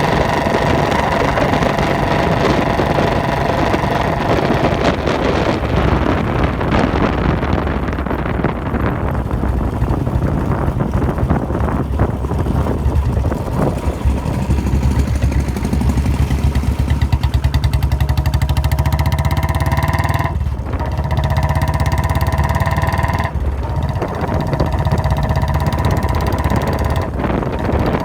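Royal Enfield Bullet Standard 350's single-cylinder engine thumping steadily on the move, with a high whine over it that breaks off briefly three times in the second half.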